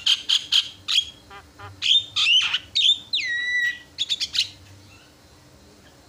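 Javan myna singing a varied burst: quick sharp calls, then harsh notes and a long whistle that drops in pitch and holds, ending in a few clicks. It falls quiet about four and a half seconds in.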